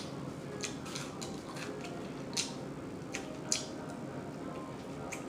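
Close-up mouth sounds of eating: chewing with wet lip-smacks and clicks, about half a dozen sharp smacks at irregular moments.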